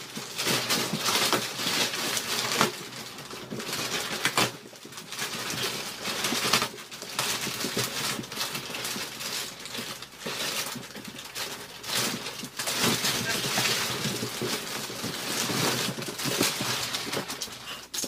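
Thick clear plastic wrapping rustling and crinkling in irregular surges as it is handled and pulled away from a spring-bed mattress.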